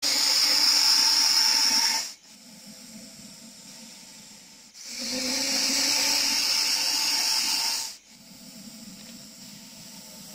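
Russell's viper hissing loudly in long, steady blasts. There are two strong hisses of two to three seconds each, with quieter hissing between and after them.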